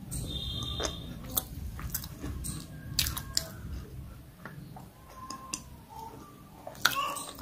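Close-miked mouth chewing a crunchy namkeen snack mix of sev and peanuts, with irregular sharp crunches and wet mouth clicks; the loudest crunches come near the end.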